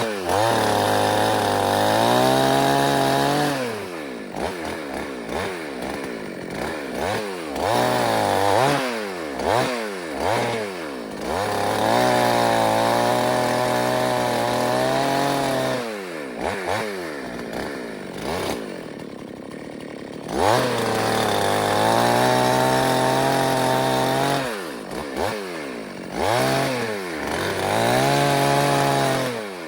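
Two-stroke chainsaw revved up to full throttle in about five bursts of a few seconds each, dropping back to a lower idle between them.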